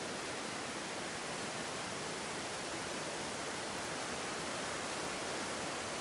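Steady rushing of a mountain stream tumbling through a rocky gorge, an even unbroken noise.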